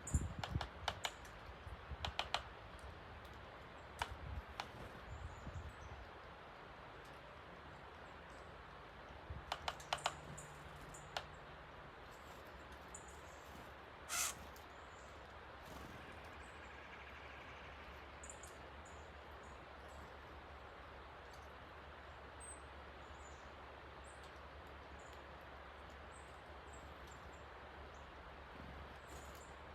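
Steady rushing of a rain-swollen creek, with sharp clicks and taps from birds at the feeder in the first few seconds and again around ten seconds in. There is one brief louder sound about fourteen seconds in, and faint high bird chirps later on.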